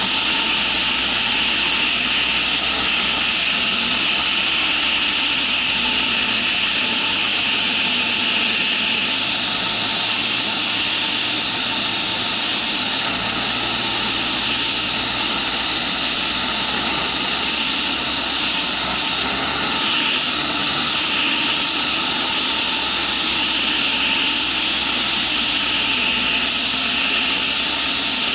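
Ultralight trike's engine running steadily in flight, under a constant loud rush of air.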